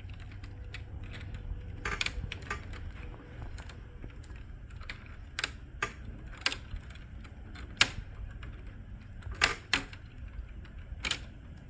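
Irregular sharp clicks and knocks of hands and tools working on parts inside an HP Color LaserJet Pro 4201 laser printer during fuser removal, over a low steady hum.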